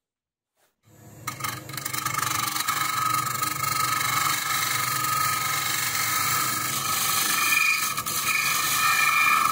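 A wood lathe starts about a second in and spins up, then runs steadily under a scraper cutting the inside of a walnut bowl: a continuous scraping hiss over the motor's whine.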